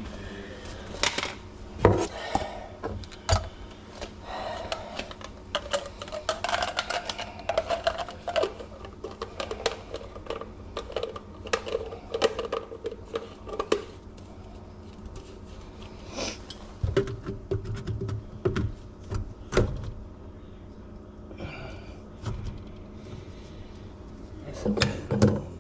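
Scattered clicks and knocks of plastic PVC drain-trap fittings being handled and pushed together in the cramped space under a sink, with a muffled voice in the background.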